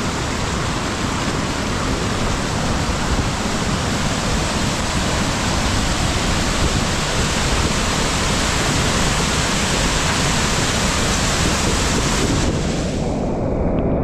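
Heavy rain pouring down: a loud, steady hiss. Near the end the high part of the sound drops away suddenly, leaving a duller, lower rush.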